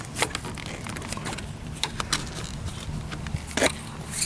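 Handling of a Jeep soft top's fabric and tailgate bar as the top is rolled under and snapped into place: a few sharp clicks and knocks, the loudest about three and a half seconds in.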